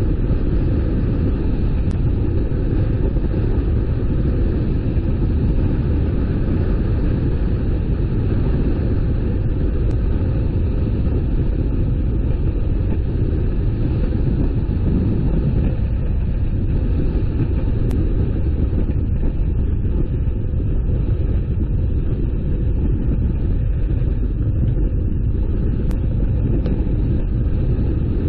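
Car driving on the road: a steady low rumble of tyre and engine noise.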